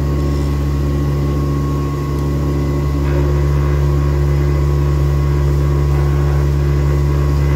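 D-bit grinder's electric motor and grinding wheel running, a steady hum made of several fixed low tones.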